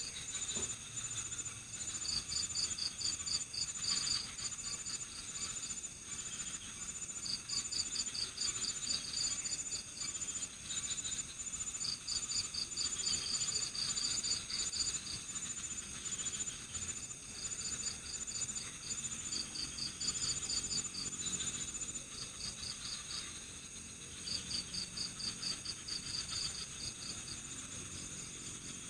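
Night-time insect chorus of crickets: pulsed trills repeating in bouts of one to three seconds every few seconds, over a steady high shrill of other insects. A thin, fast-pulsing high tone drops out about two-thirds of the way through.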